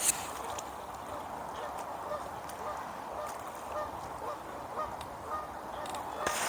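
Distant geese honking, short calls repeated every second or so over a steady rush of wind.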